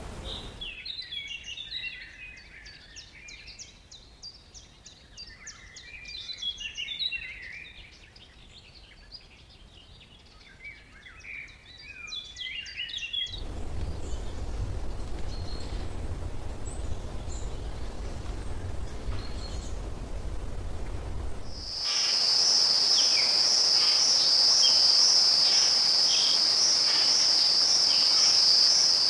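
Rainforest ambience: several birds chirping and singing in quick, overlapping calls, then a low rumble with faint chirps. About two-thirds of the way in, a loud, steady, high-pitched insect drone with a slight pulse starts, with bird chirps over it.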